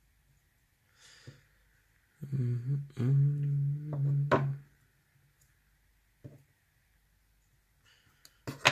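A man hums a steady, low, wordless note for about two seconds, then a short click. A faint breath comes before it.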